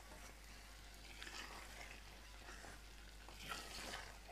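Spoon stirring thick spinach and mutton curry in a pot as cream is mixed in, with faint sizzling from the frying. A scraping swish comes about a second in and again near the end.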